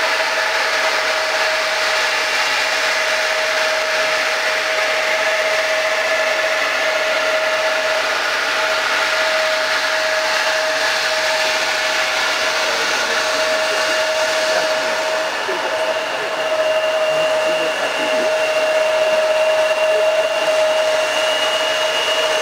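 Embraer 175's two CF34-8E turbofan engines running at taxi thrust as the jet rolls past: a steady whistling whine over a rushing hiss, a little louder in the last few seconds.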